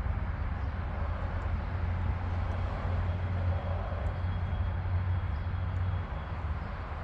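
Steady low rumble with a hiss above it, easing off about six seconds in.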